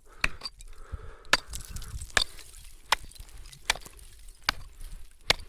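Hatchet chopping into lake ice, about seven sharp strikes spaced roughly a second apart, to test the ice's thickness; the ice is already past 4 inches thick without reaching water, so it is safe to stand on.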